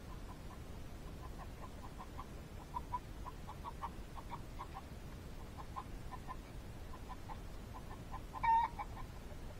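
Chickens clucking: a steady run of short, repeated clucks, with one louder, longer call about eight and a half seconds in.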